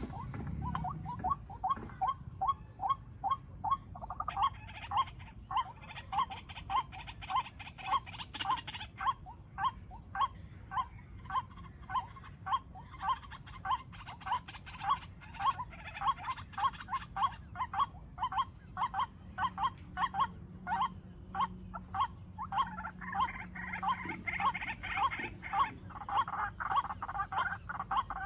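White-breasted waterhen calling: a long, unbroken run of short, even notes at about two a second.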